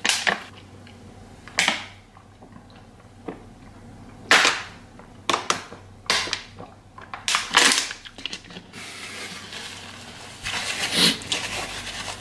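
Thin plastic water bottle crackling with sharp snaps as it is gripped and drunk from, several times over, then a longer rustle of a paper napkin wiping the mouth near the end.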